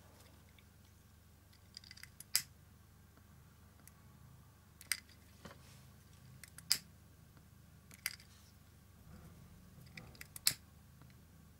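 A handheld lighter struck again and again: about five short, sharp clicks a second or two apart, with fainter handling ticks between them.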